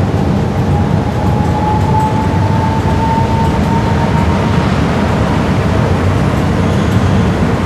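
Electric MRT train pulling away, its motor whine rising slowly in pitch and fading out about halfway through, over a steady low rumble.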